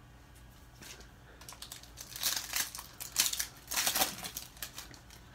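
Foil wrapper of a 2019 Donruss football card pack crinkling as it is torn open by hand, in a run of crackly bursts from about two seconds in.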